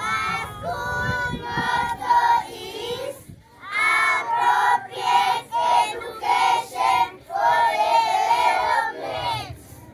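A group of young children singing together in unison. They sing short repeated phrases with brief breaks, then a longer held phrase near the end.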